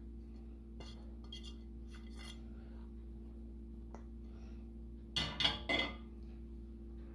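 Ceramic plate and stainless steel mixing bowl knocking together as sliced onions are tipped into the flour: a few light taps, then a louder clatter of dishes about five seconds in.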